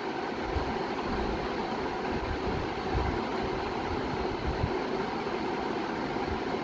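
Steady hum and hiss of a running room appliance such as a cooling unit, with irregular low rumbles underneath.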